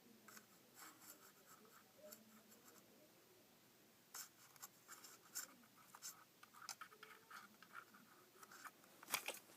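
Near silence with faint, scattered ticks and scratchy crackles, and a couple of sharper clicks just before the end.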